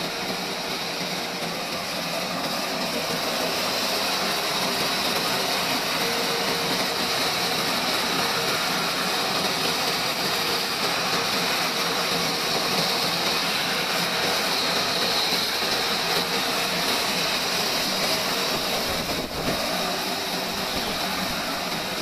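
Horizontal band sawmill running, its band blade cutting lengthwise through a large log with a steady, even, high-edged noise.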